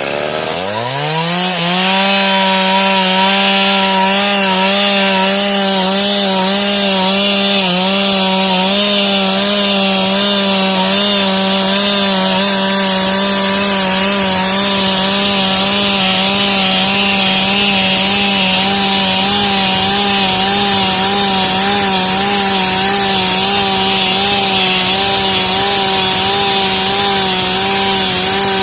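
Stihl MS 382 two-stroke chainsaw revving up over the first two seconds, then held at full throttle at a steady, slightly wavering pitch as it rip-cuts dry wood along the grain.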